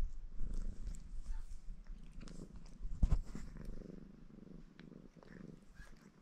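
Maine Coon cat purring steadily while he grooms himself, with one loud thump about three seconds in.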